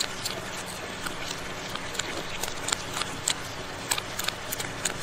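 Small knife blade scraping and shaving the fibrous husk of a roasted coconut, short irregular strokes about three a second.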